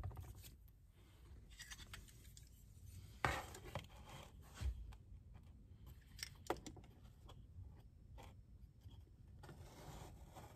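Quiet handling sounds: faint scraping and rubbing of a hand tool working the van's floor covering, with a few light knocks and clicks, the loudest about three seconds in.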